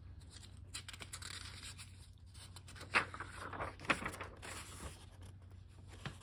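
Paper rustling and crinkling as an old folded paper brochure is unfolded and its pages turned by hand, with two sharper crackles about three and four seconds in.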